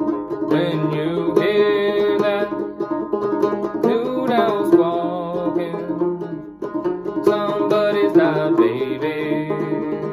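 A c.1867 Dobson banjo played clawhammer style: a steady run of plucked notes, with a man singing the song over it in phrases.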